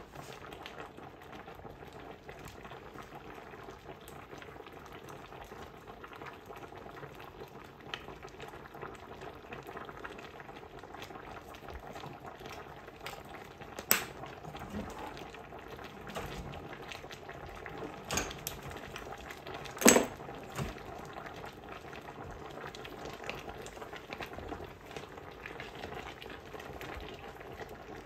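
Beef stew bubbling at a simmer in an enamelled cast-iron pot, a steady low bubbling. There are three sharp knocks of the wooden spoon against the pot in the middle, the loudest about twenty seconds in.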